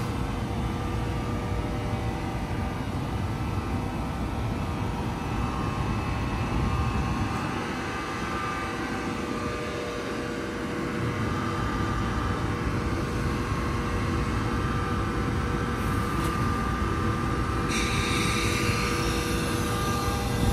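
NJ Transit electric locomotive standing at the platform, its equipment humming steadily with several held tones over a low rumble. About three-quarters of the way through, a hiss of air starts.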